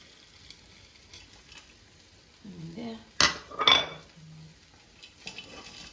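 Cookware clattering against a non-stick frying pan as frozen mixed vegetables are tipped into fried rice: two sharp knocks about half a second apart a little past the middle, the second ringing briefly, over a faint sizzle.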